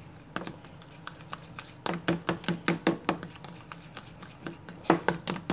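Metal spoon stirring a mixture of baby shampoo and coconut oil in a small plastic bowl, clicking against the bowl in quick runs of taps, about five a second. One run comes about two seconds in and another near the end, with a quieter stretch between.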